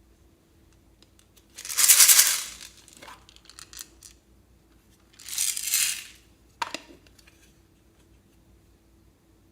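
Slime and mix-in ingredients being handled and mixed by hand: two loud bursts of crackly, rustling noise about two and five and a half seconds in, a few smaller clicks between them and a sharp click just before seven seconds.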